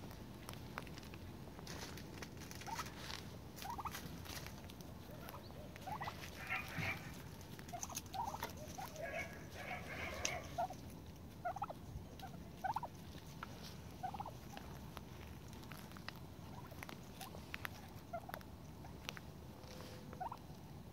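Domestic turkeys calling with scattered short, rising chirping calls, coming thicker in a flurry around the middle, over faint ticks and rustles.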